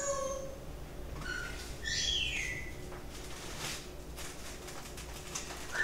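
White cockatoo on a person's shoulder giving short squawking calls: a brief one at the start, a longer call that falls in pitch about two seconds in, and another short one near the end. There is faint rustling and clicking from items being handled.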